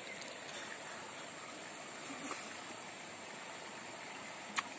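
Steady rushing background noise like flowing water, with one sharp click near the end.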